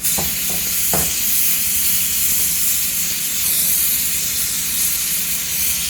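Electric arc welding on galvanized steel sheet: the arc gives a steady, unbroken hiss.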